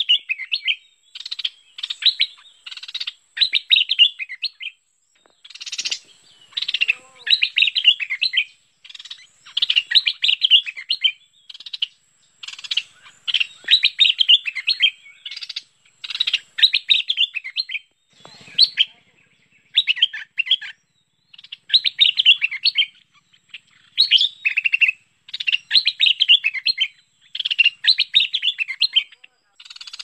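Stripe-throated bulbul (merbah lekir) singing: short, rapid warbled phrases about a second long, repeated over and over with brief pauses, as played for a lure call. A faint steady high tone runs underneath.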